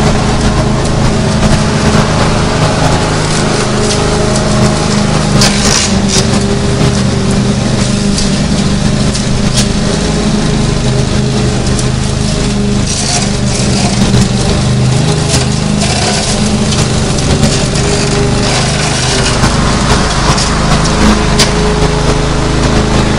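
Lawn mower engine running steadily while mowing, with scattered short clicks over the engine note.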